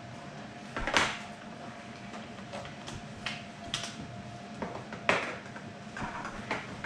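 Scattered clacks and knocks of toy train track pieces being handled and fitted together. The loudest comes about a second in, and a faint steady hum runs underneath.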